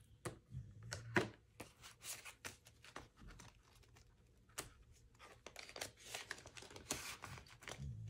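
Paper banknotes and cash envelopes being handled: irregular rustling and crinkling with small sharp clicks of paper.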